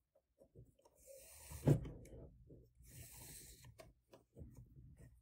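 Paracord being handled and pulled through a bracelet buckle: two soft rustling swishes of cord, scattered small clicks, and one sharp knock about two seconds in.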